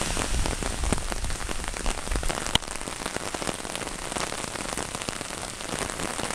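Heavy hurricane rain falling steadily, with many drops ticking on an umbrella held over the microphone. A single sharp click about two and a half seconds in, where the sound drops a little.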